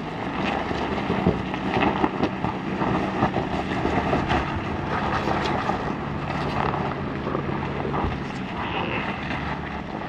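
Toyota LandCruiser 300's twin-turbo V6 diesel engine pulling under load as the 4WD climbs a rutted, rocky track, with frequent clicks and knocks from stones under the tyres.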